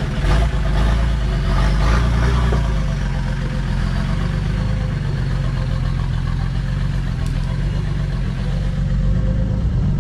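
Off-road 4x4's engine running steadily at low revs, with a few short knocks in the first couple of seconds.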